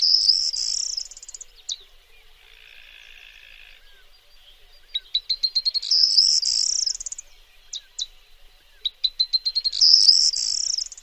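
Corn bunting singing its jangling song: a quick run of high ticks that speeds up into a dry, rattling trill like shaken keys. It repeats about every four to five seconds, twice in full, with a fainter buzzing sound between songs.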